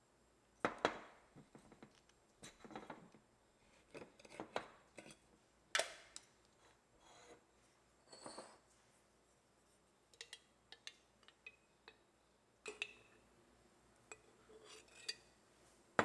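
Irregular clinks, taps and short scrapes of a metal screw lid and a wooden spoon against glass as a glass jar of thick homemade soy-milk yogurt is opened and spooned into a glass dessert bowl. The sounds are separate and unevenly spaced, with a few sharper knocks among them.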